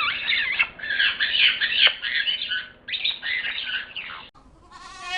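Parrot squawking and chattering in fast, harsh, overlapping calls that cut off suddenly about four seconds in. A short bleat follows near the end.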